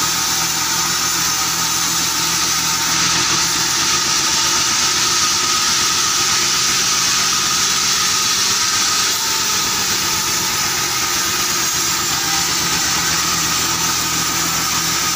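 Sawmill band saw machinery running steadily, a constant loud mechanical drone with a whining hiss and low hum.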